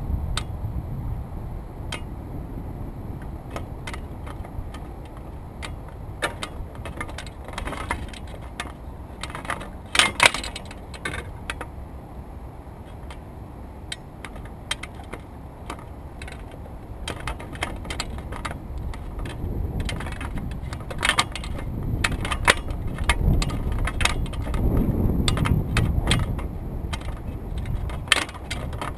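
Wind rumbling on the microphone, swelling near the end, with scattered clicks, knocks and rattles from fishing tackle being handled in a canoe.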